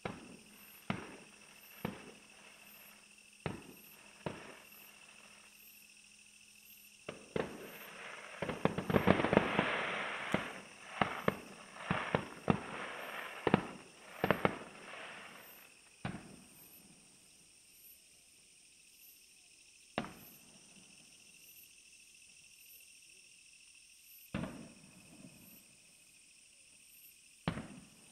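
Fireworks bursting: single bangs about a second apart, then a dense volley of rapid crackling bangs about nine seconds in, the loudest part, followed by more bangs that thin out to single reports several seconds apart.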